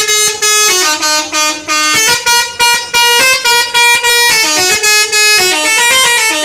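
Telolet horn, a multi-tone musical vehicle air horn, playing a quick melody of short and held notes that hop up and down in pitch.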